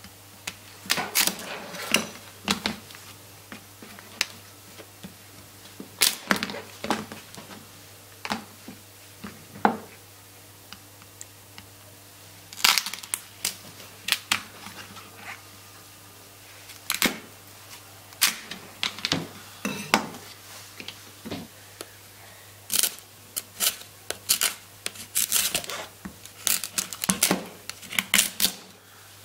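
A Japanese kitchen knife cutting and cracking the shell of boiled king crab legs on a plastic cutting board: irregular sharp crunches and taps, some in quick runs of several, with short pauses between.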